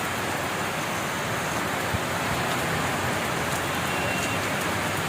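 Heavy rain falling steadily, an even hiss of rain on surfaces, with one soft low knock about two seconds in.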